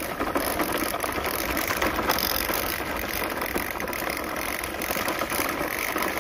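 Toy RC car's small electric motor and gearbox running as it drives, a steady rattly whirring of gears.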